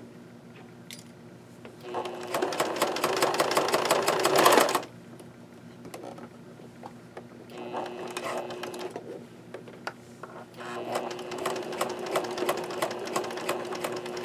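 Pfaff Select 1546 electric sewing machine stitching a zigzag seam in three runs of fast needle strokes, stopping and restarting as the fabric is eased around a curve: a longer run from about 2 s to nearly 5 s, a short one around 8 s, and another from about 10.5 s to the end.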